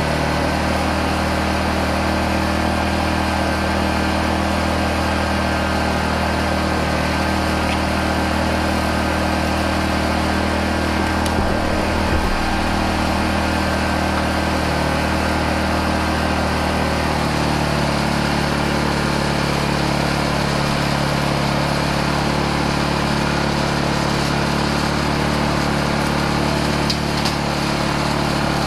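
Honda EU2000i inverter generator's small single-cylinder four-stroke engine running steadily, now putting out power after a broken inverter output wire was repaired. Its engine note changes about two-thirds of the way through.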